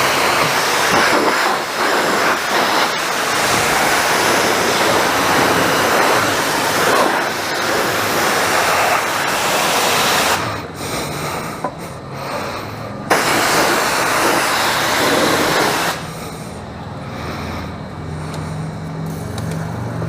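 High-pressure washer wand spraying water in a steady hiss, stopping briefly about ten seconds in, starting again, then cutting off about sixteen seconds in and leaving a lower background hum.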